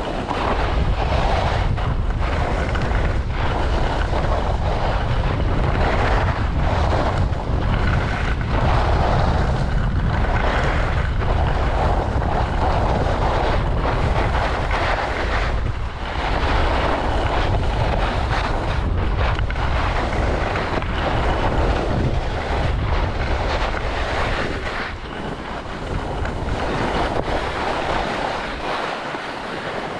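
Wind buffeting the camera microphone of a downhill skier, with the rushing hiss and scrape of skis on packed, chopped-up snow swelling and fading about once a second or two, turn by turn. A little quieter near the end.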